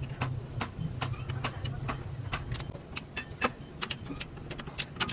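Irregular metallic clinks and taps of tools and parts being handled during differential gear work, several a second, over a steady low hum.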